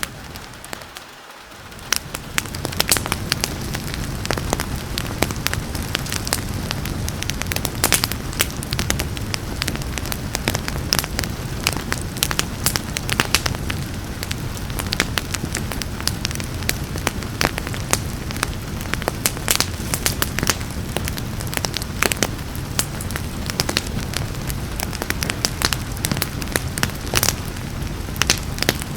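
Wood fire crackling with frequent sharp pops over a steady rain hiss. The sound briefly drops away about a second in, then returns.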